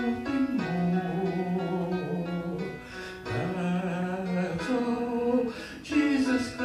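Man singing slow, long held notes that slide up into pitch, over recorded piano accompaniment.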